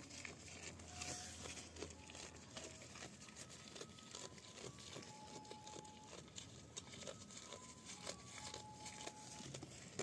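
A goat tearing off and chewing fresh green leaves: faint, irregular crinkling and crunching clicks.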